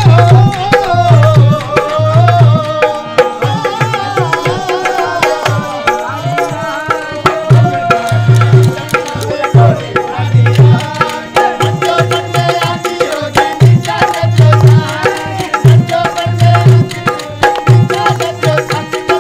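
Indian folk music: a dholak hand drum beating a repeating rhythm under a melody.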